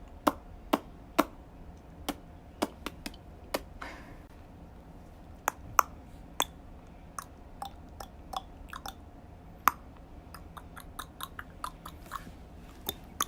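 A long series of sharp clicks and pops made with the hands, irregularly spaced, some with a brief hollow ring.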